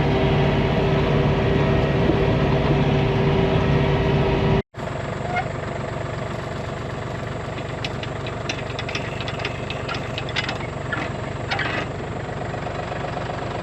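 Tractor engine running steadily while pulling a hay tedder. About four and a half seconds in it breaks off for a moment, then comes back quieter, with scattered light clicks and rattles.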